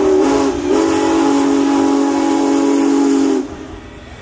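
Union Pacific Big Boy No. 4014 steam locomotive's whistle blowing a long chord of several notes, with a brief dip about half a second in. It cuts off suddenly about three and a half seconds in.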